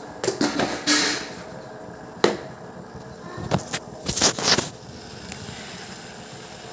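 Kitchen handling noises while making tea: a jar and a metal tea pot being picked up and set down, with a scuff about a second in, one sharp click a little after two seconds, and a quick cluster of clicks and knocks around four seconds.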